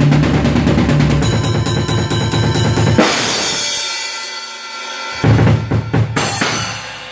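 Acoustic drum kit played at speed: a dense run of rapid drum strokes, cut off about three seconds in by a loud cymbal crash that rings out. A few sharp accented hits on drums and cymbals come near the end.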